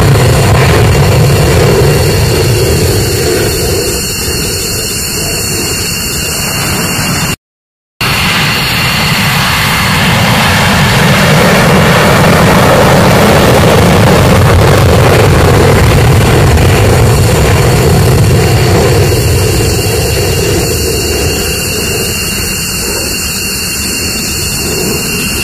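F-15C Eagle fighter jets taking off on afterburner, their twin afterburning turbofans making a loud, deep rumble. The first takeoff fades as the jet climbs away. After a brief break in the sound about seven seconds in, a second takeoff swells up loud and then tails off.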